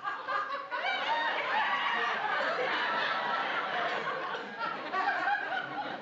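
A sitcom studio audience laughing: many voices at once, building up about half a second in and carrying on steadily.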